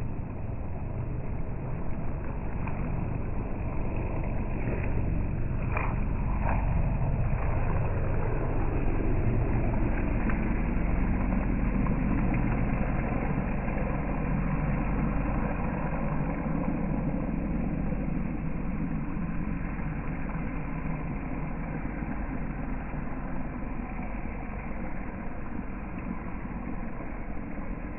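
RC speedboat running in a pool, its motor and the churned water making a steady rushing noise that swells about ten seconds in and eases off toward the end. A few short clicks come around six seconds in.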